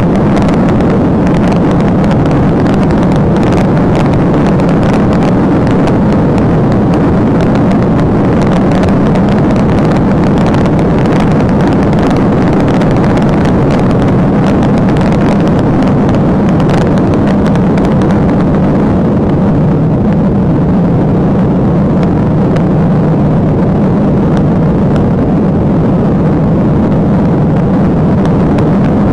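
Police patrol car driving flat out at about 138 mph: loud, steady engine, tyre and wind noise, easing slightly near the end as the car slows toward 120 mph.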